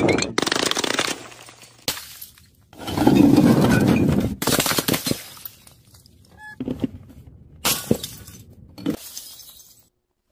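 Glass bottles smashing one after another: about half a dozen sudden crashes with tinkling shards, the loudest and longest about three seconds in.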